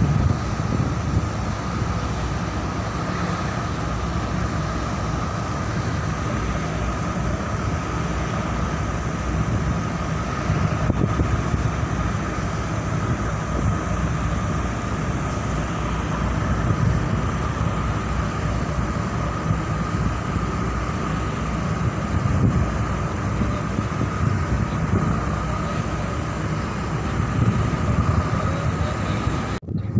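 A ship's engine runs steadily with a constant whine over it, and wind gusts rumble on the microphone. The sound drops out briefly near the end.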